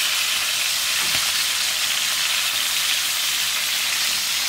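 Chicken pieces browning in hot oil in a frying pan: a steady sizzle while they are turned over with a fork.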